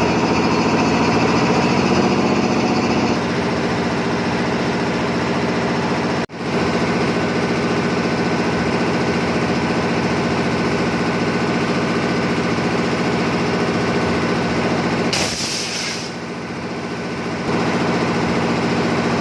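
Pneumatic impact wrench running in long bursts on a truck's wheel nuts, a fast, loud rattle, with a short hiss of air about 15 seconds in.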